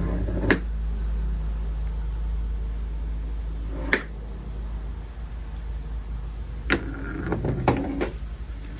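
Handling leather on a cutting mat: a pointed tool tracing around a piece of ostrich leg leather, with a few sharp taps and knocks as the tool and the leather pieces are moved and set down, over a steady low hum.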